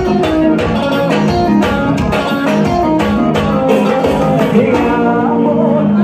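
Live forró band playing, in the pisadinha style: electric guitar, electric bass, keyboard and congas over a steady beat.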